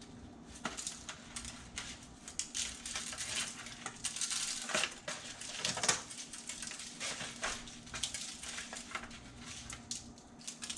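Kitchen handling noises while fish is seasoned: irregular clinks, taps and short rattles of dishes, utensils and spice containers, over a faint steady hum.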